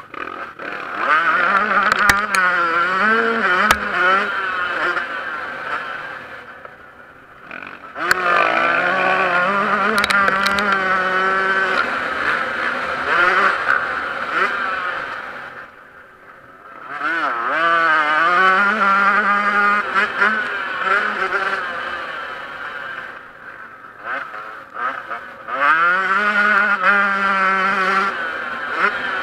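Yamaha YZ125 two-stroke motocross bike racing: the engine revs hard and climbs through the gears, its pitch rising and dropping with each shift. It eases off the throttle three times, then pulls hard again.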